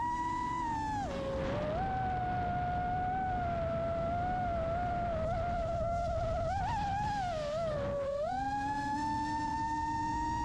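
Custom 5-inch FPV quadcopter's brushless motors and propellers whining, as heard from its onboard camera, the pitch falling about a second in as throttle eases, wavering lower, then climbing back up near the end. A low rumble of wind buffeting sits underneath.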